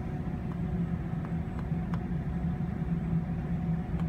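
Steady low engine-like machinery hum. Four faint ticks come in the first two seconds as a stylus taps number keys on a touchscreen.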